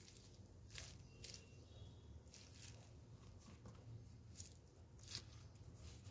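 Faint, irregular crackling and squelching of a mesh-wrapped gel stress ball being squeezed in the hand.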